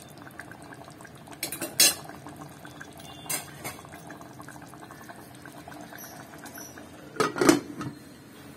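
Metal ladle clinking against an aluminium pressure cooker in a few short knocks, then a louder metallic clatter near the end as the pressure cooker lid is fitted and closed.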